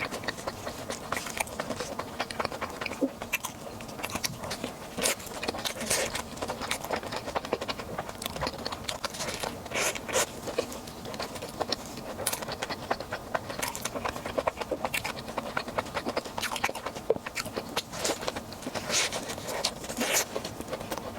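Eating sounds: a person chewing food with many short, irregular crunches, clicks and wet mouth smacks.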